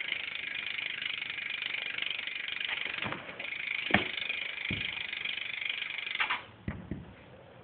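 BMX bike's rear hub ratcheting as the back wheel spins freely, a fast steady buzz of clicks that is pretty loud, stopping about six seconds in. A few sharp knocks along the way.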